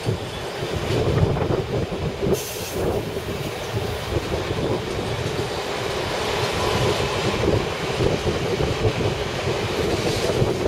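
London Underground S-stock train running past on the tracks below, a continuous rumble of wheels on rail with a steady hum. A short hiss about two seconds in.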